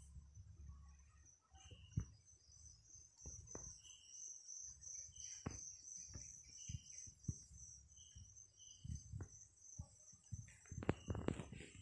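Insects trilling in a steady, high, pulsing chorus, with scattered soft knocks and taps that come thicker near the end.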